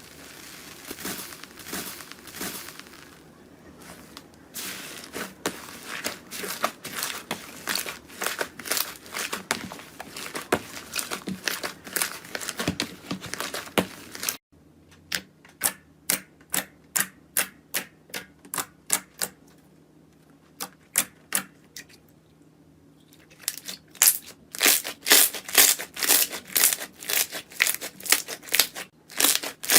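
Slime being squeezed and pressed by hand, making crisp clicking and crackling sounds. Partway through it cuts abruptly to a slower, even run of clicks about two a second, which turn louder and faster near the end.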